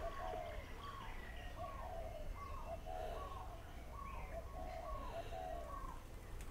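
A bird calling over and over in a steady rhythm, each call a short higher note followed by a lower one, repeating a little more than once a second, over a faint low rumble.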